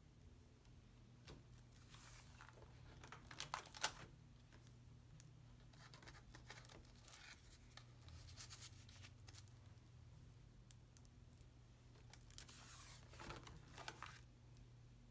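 Paper rustling and crinkling as the collaged pages of a sketchbook are handled and turned, in three short bursts: a few seconds in, in the middle, and near the end. A faint steady hum runs underneath.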